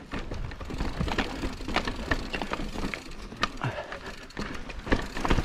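Mountain bike riding over rough trail: irregular clattering and knocks from the bike and tyres, over a steady low rumble.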